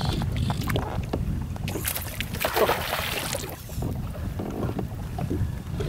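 Wind rumbling on the microphone and water lapping against a kayak, with a louder hissing rush about two seconds in that lasts over a second.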